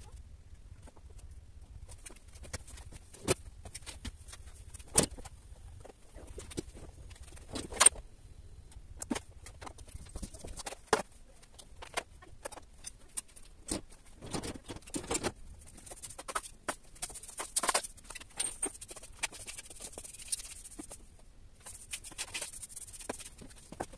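Irregular knocks and clatters of household items being handled and set down around a refrigerator, the loudest about eight seconds in. In the second half come the brushy swishes of a broom sweeping the floor, mixed with more knocks.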